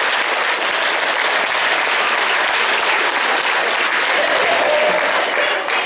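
Audience applause: dense, steady clapping that stops abruptly at the very end.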